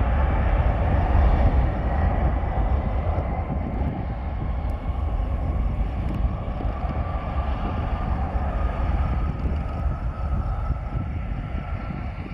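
Jet airliner's engines rumbling, gradually fading, with a faint rising whine over the last few seconds.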